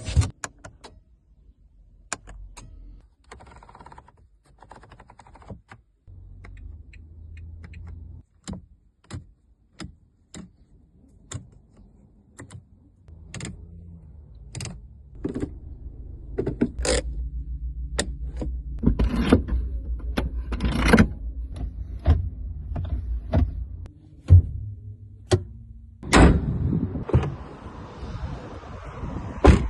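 New Lada Vesta car's mechanical sounds: a string of sharp clicks and thunks from its doors and controls over a low running hum, which comes in about six seconds in and grows louder from about sixteen seconds.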